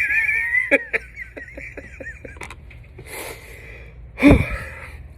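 A man's high-pitched wavering wheeze and whimper, breathy and strained, then a sharp breath and a short loud grunt about four seconds in: his reaction to the burn of extreme hot sauce.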